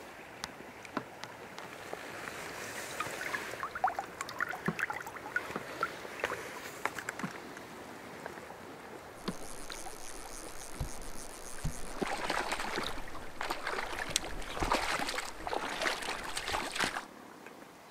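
Mountain stream water splashing and gurgling, with scattered small clicks and knocks. The splashing grows louder and busier in the second half, then drops back near the end.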